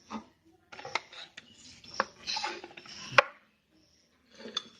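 Light clinks and clicks of small hard objects being handled on a workbench, with a sharper click about three seconds in.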